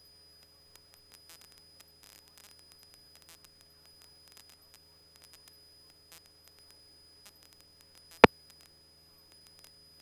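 Faint steady electrical hum and soft static crackle on an aircraft radio and intercom audio line, with a single sharp, loud click about eight seconds in.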